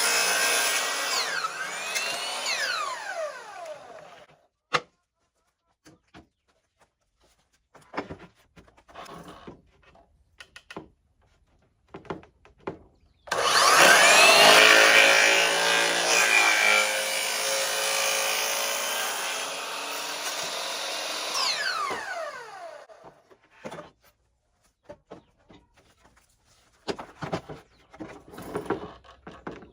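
Electric power saw cutting wood panels to size: it winds down with a falling whine over the first few seconds, followed by scattered knocks and clicks of the pieces being handled. About 13 seconds in the saw starts suddenly, runs through a cut for about nine seconds, then winds down with a falling whine, and the knocks of handling follow.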